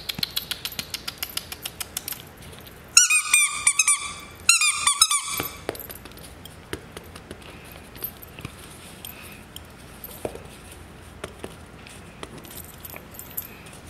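Two short bursts of rapid, high-pitched squeaking, about three and four and a half seconds in, each lasting under a second, after a stretch of quick, even ticking.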